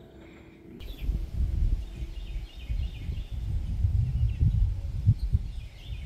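Outdoor garden ambience starting about a second in: small birds chirping over a low, uneven rumble.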